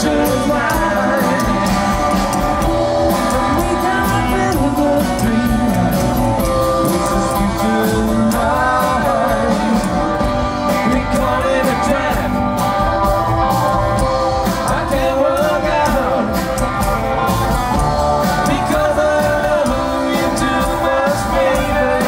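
A live rockabilly band playing: upright bass, drum kit and electric guitar, with a man singing lead.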